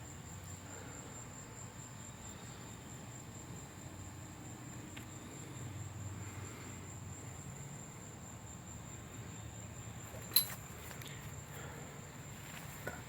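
Night insects trilling in one steady, high-pitched tone, faint and unbroken. A single sharp click sounds about ten seconds in.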